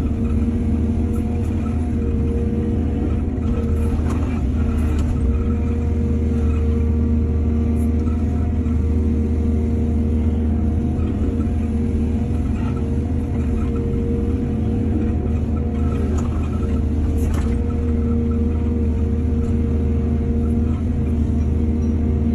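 Excavator's diesel engine running steadily with a deep hum, with a few light knocks.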